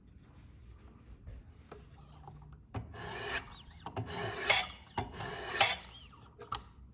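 Wicked Edge guided sharpener's 1000-grit stones scraping along a clamped knife edge: three strokes about a second apart after a quiet start, then a few light clicks. These are light passes to find the edge angle by seeing where the marker comes off the bevel.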